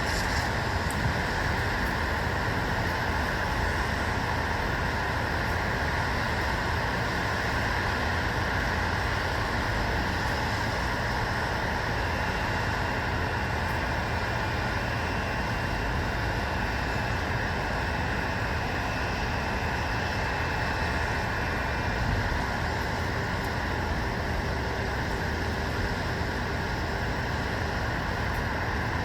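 Steady white noise: an even, unchanging hiss over a low rumble. A faint thin high tone sits in it for several seconds in the middle.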